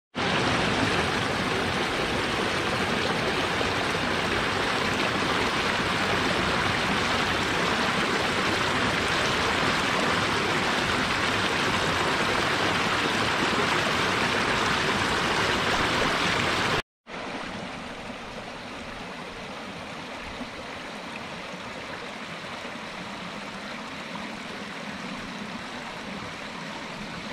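A small forest brook splashing over stones in a little cascade, a steady rush of water. About 17 seconds in the sound drops out for a moment and returns quieter, the stream heard from farther off.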